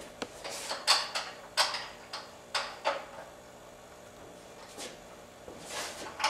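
A string of sharp clicks and knocks, about eight in the first three seconds and a few more near the end, from someone moving around and handling the metal frame and bolts of a vibraphone being assembled.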